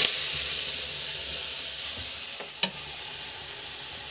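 Onion-tomato masala paste sizzling in hot oil in a steel kadhai just after being poured in, the hiss steady and slowly dying down. One short knock about two and a half seconds in.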